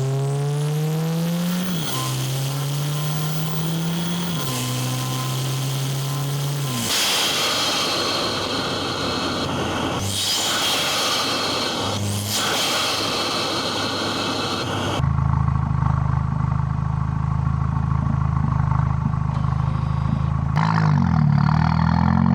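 Volkswagen MK8 GTI's turbocharged 2.0-litre four-cylinder with a Milltek cat-back exhaust and downpipe accelerating hard, its pitch climbing and dropping at three quick upshifts, with rushing road and wind noise. After a cut about two-thirds through it drones steadily lower, then the revs rise and fall again near the end.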